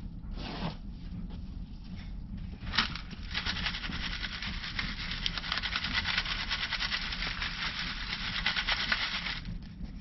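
Hands scooping damp worm-bin compost, then a green plastic sieve with a quarter-inch wire screen shaken steadily for about six seconds. Compost and castings rattle and patter through the mesh with a dense crackling, which stops suddenly near the end.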